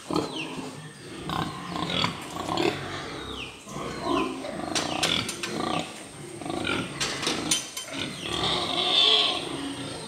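Pigs grunting and squealing, a string of short calls, several of them sliding down in pitch, with a louder squeal near the end. A few sharp knocks come around the middle.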